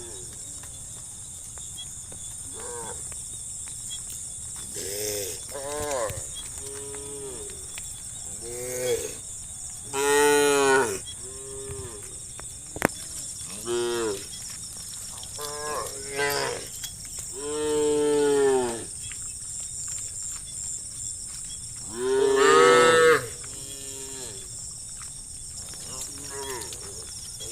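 Cattle mooing again and again, a dozen or so separate calls of varying length and pitch, the two loudest about ten and twenty-two seconds in.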